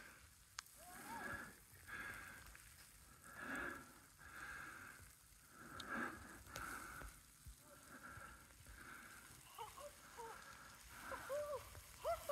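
Very faint, soft swishing sounds about once a second. Near the end come two or three short, faint calls from a distant voice, each rising and falling in pitch.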